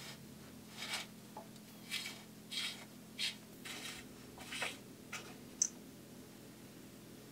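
Bicycle bottom bracket cup being unscrewed by hand from the frame's threaded bottom bracket shell: a series of short, faint scratchy rasps of metal threads grating, one every half-second to second, that stop a little past the middle.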